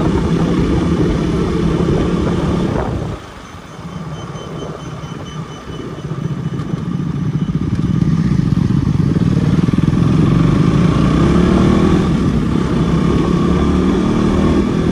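Motorcycle engine running on the move. The sound drops away sharply about three seconds in, builds back up a few seconds later, and the engine pitch rises near the end as it accelerates.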